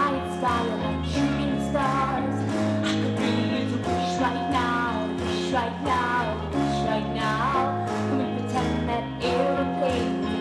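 Music: a song's backing track with held bass notes and a melody line above them, playing on without words.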